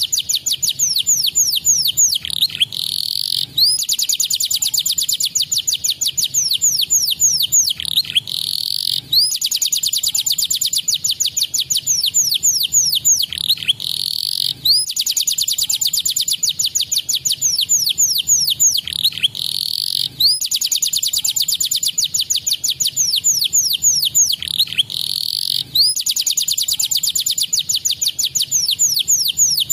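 Domestic canary singing: rapid high trills of fast repeated notes and quick downward-sweeping whistles. The same song phrase comes round about every five and a half seconds, a looped stimulation ('pancingan') track meant to set other canaries singing.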